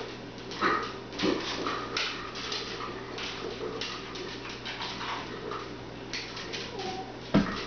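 Dogs playing with a ball on a hard floor: scattered clicks and scuffs, short whines, and one sharp knock near the end.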